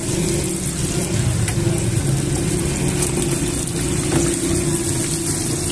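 Battered chicken deep-frying in a steel fryer, the hot oil bubbling and sizzling with a steady hiss, over a loud, steady low rumbling hum.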